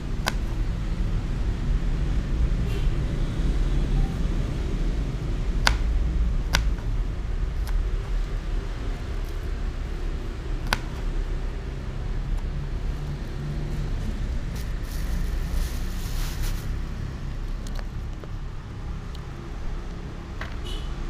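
A steady low background rumble, with a few sharp knife taps on a plastic cutting board as shallots are cut by hand. A short rustle comes a little past the middle.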